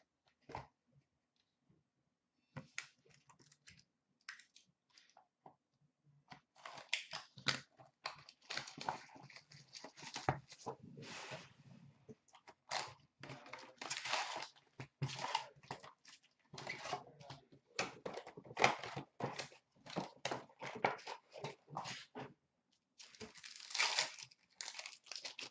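A sealed box of hockey card packs being opened by hand: wrapping crinkling and tearing, and the card packs' wrappers crinkling as they are handled and ripped open. There are a few light handling sounds at first, then irregular crinkling and tearing from about six seconds in, with a short pause near the end.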